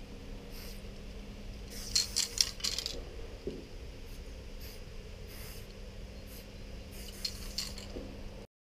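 Loop aerosol spray paint can spraying in short hissing bursts, with a louder cluster of metallic clicks and rattles about two seconds in, over a faint steady hum; the sound cuts off suddenly near the end.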